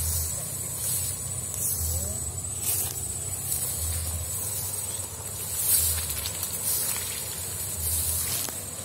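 Footsteps swishing and rustling through tall grass, one stroke about every second, each with a soft low thud. A steady high-pitched whine runs underneath.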